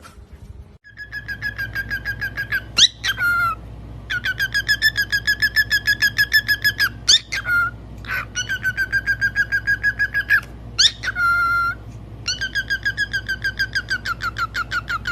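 A bird calling in trains of rapid, evenly repeated high chirps, about ten a second, broken every second or two by quick rising whistles.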